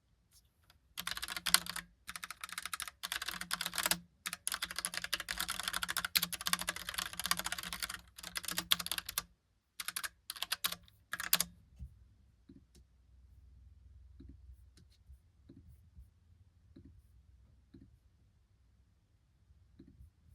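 Typing on a Logitech Pop Keys mechanical keyboard: rapid key clicks in bursts with short pauses for about ten seconds, then the typing stops. After that only a faint low hum and a few scattered soft clicks remain.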